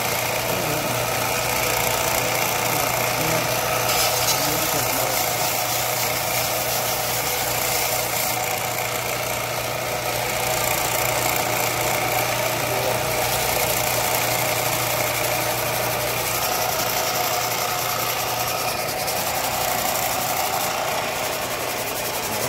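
Electric sander running steadily while a knife is ground smooth against it, the hiss of the work shifting every few seconds.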